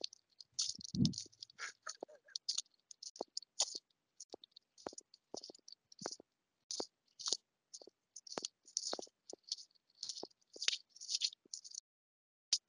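Irregular faint crackles and clicks, about two a second, with a brief low sound about a second in.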